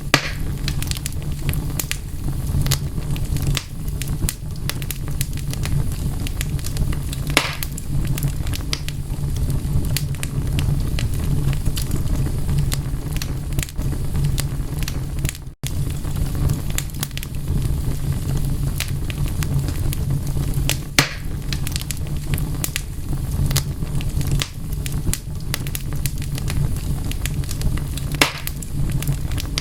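Wood fire crackling steadily, with dense small snaps over a low rumble and a few louder pops. The sound cuts out for a split second about halfway through.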